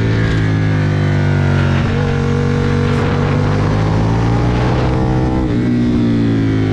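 Aprilia Tuono motorcycle engine under hard acceleration. The revs climb steadily, drop sharply at a gear change about five and a half seconds in, then fall away near the end.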